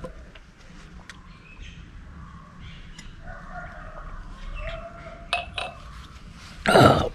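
Faint bird chirps in the background, with a couple of light clicks, then near the end a man gives one loud, short cough.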